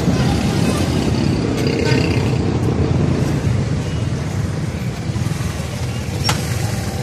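Motorcycle engine running with a steady low rumble as the bike rolls slowly in to park, with a single sharp click about six seconds in.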